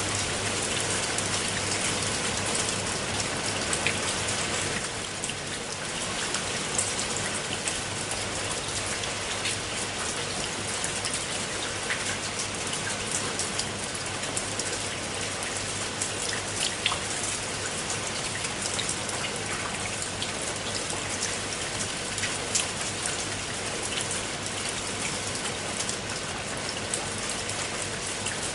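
Steady rain falling into a pool of standing water: an even hiss with many separate drop splashes and plinks. It grows a little softer about five seconds in.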